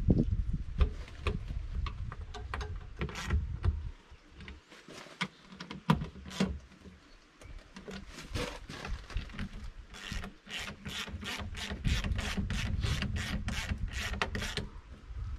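Hand ratchet wrench running bolts back in on a John Deere 35G excavator's pilot filter housing during reassembly: scattered metal clicks and taps, then a quick run of even ratchet clicks, about four a second, in the last few seconds. A low rumble runs under the start and again near the end.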